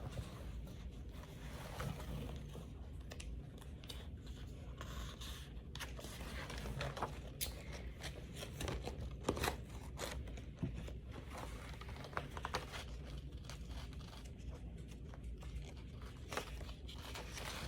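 Pages of a spiral-bound paper planner being turned by hand: soft paper rustling with light flicks and taps scattered throughout.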